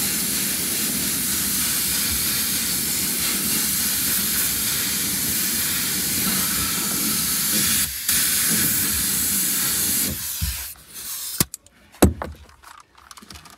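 Gravity-feed air spray gun, its fan set to a narrow pencil jet, spraying etch primer into a freshly welded sill cavity: a steady hiss that breaks off briefly about eight seconds in and stops about ten seconds in. A few sharp knocks follow.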